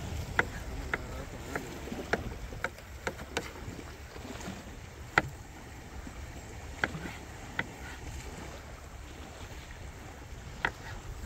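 Kitchen knife chopping cucumber on a wooden cutting board: about a dozen sharp taps at uneven intervals over a steady low rumble.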